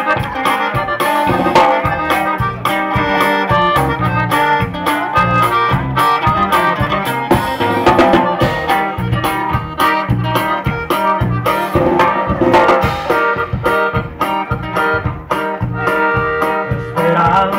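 Live norteño band playing through the stage's loudspeakers, with a steady bass-and-drum beat under guitar and keyboard-like parts.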